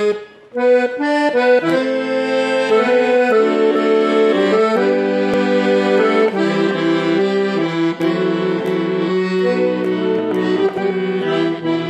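Bayan (Russian button accordion) playing the instrumental introduction to a song: a melody over held chords, with a few short separate chords in the first couple of seconds.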